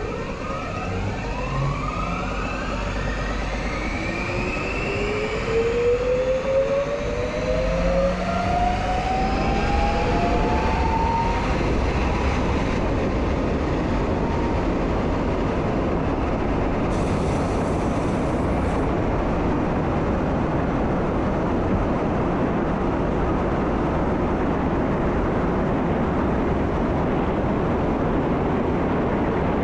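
Croatian Railways train gathering speed, heard from the driver's cab: a whine of several tones climbs steadily in pitch over the first ten seconds or so. It then gives way to a steady running noise of wheels on rail.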